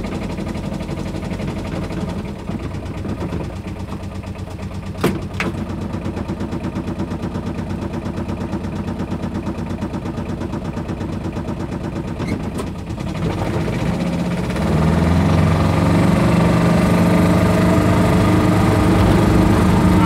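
Aixam Mega Multitruck's small two-cylinder Kubota diesel engine idling with a rapid, even chug, with a sharp click about five seconds in and another near thirteen seconds. About fourteen seconds in the engine picks up revs and gets louder as the van pulls away under load.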